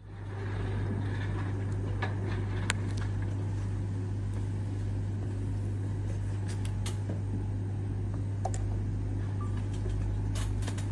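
Steady low hum with a constant hiss, and a few faint light clicks and taps scattered through it.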